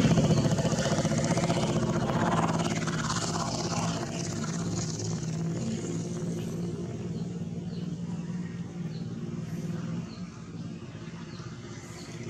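A motor vehicle's engine running steadily, loudest at first and slowly fading away, with faint repeated bird chirps in the background.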